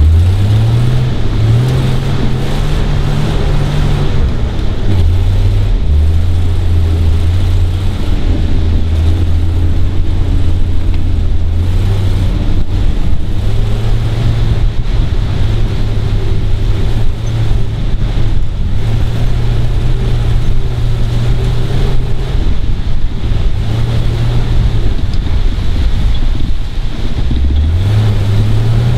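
Kaiser Jeep M715's original Tornado 230 straight-six engine pulling the truck at low speed. The engine note rises over the first few seconds, settles lower with small changes in throttle, and rises again near the end.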